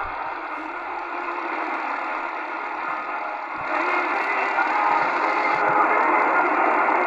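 Medium-wave AM reception from a portable shortwave radio's speaker: a weak daytime station with faint music buried under heavy static hiss. About halfway in, the sound turns brighter and fuller as the tuning shifts.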